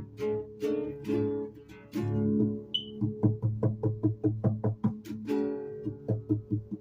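Music played on a strummed string instrument. Chords are struck slowly for the first two seconds or so, then in a quicker, even rhythm of about four strokes a second from about three seconds in.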